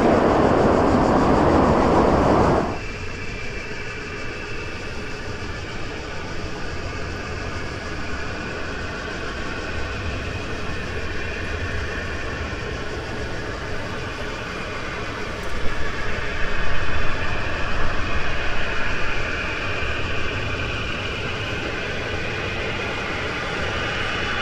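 Boeing 737 jet engines: a loud, even roar for the first two and a half seconds that cuts off suddenly, followed by a quieter, steady jet whine with several held tones. About two-thirds of the way through it grows louder and uneven for a few seconds, then settles again.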